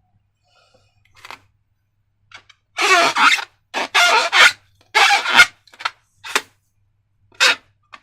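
Slime being mixed and squished: wet, sticky squelches in short irregular bursts, the loudest in the middle stretch.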